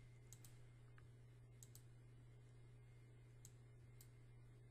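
Faint computer mouse clicks, about half a dozen scattered irregularly while a font list is scrolled, over a steady low hum; otherwise near silence.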